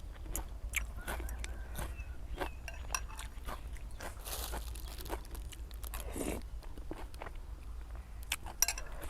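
A person eating close to the microphone: crunchy bites and chewing made of many short sharp clicks, with a longer rushing noise about four seconds in.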